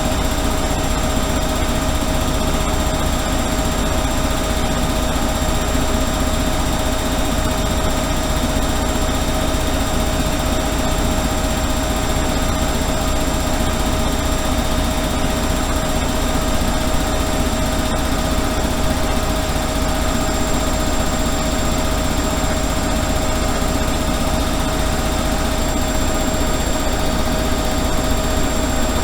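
Washing machine running: a steady low rumble with a constant high motor whine over it, unchanging throughout.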